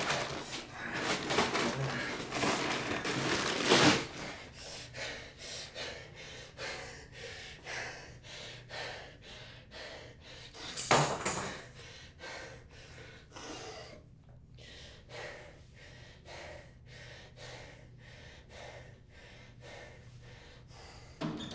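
A man breathing hard and unevenly, with two loud sharp intakes of breath about four and eleven seconds in, his breaths growing quieter in the second half.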